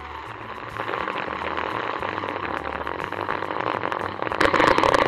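A dense crackling, rustling noise made of many rapid clicks, growing louder about four seconds in.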